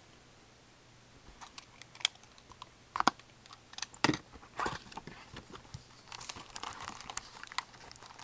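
A cardboard box of '08 Fleer Ultra hockey card packs being opened and emptied by hand: scattered sharp clicks and a few louder knocks about halfway through, then a stretch of crinkling pack wrappers.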